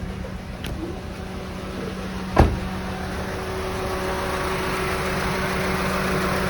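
Honda Civic FD's 1.8-litre four-cylinder engine idling with a shake, running as if on three cylinders, which the owner puts down to a misfire from a failing ignition coil. A single sharp thump about two and a half seconds in.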